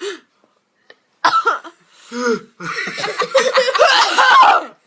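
Several people laughing. A short outburst comes about a second in, then a stretch of rapid, pulsing laughter over the last two seconds.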